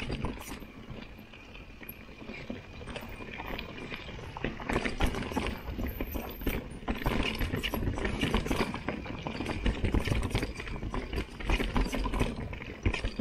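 Mountain bike clattering and rattling over a rough trail on a descent: many irregular knocks and clicks over a steady low rumble.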